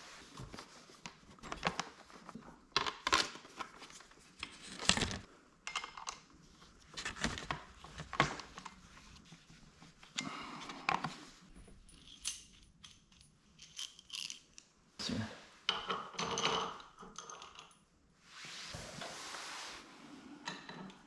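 Metal tools and bike parts clinking and knocking in irregular short strikes as the electric dirt bike is assembled by hand, with a steady rushing noise for about two seconds near the end.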